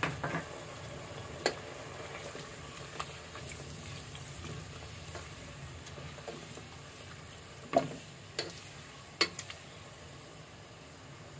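Chicken pieces and potatoes sizzling in bubbling oil and masala in a nonstick pot, stirred with a spatula that knocks sharply against the pot now and then, loudest about eight and nine seconds in.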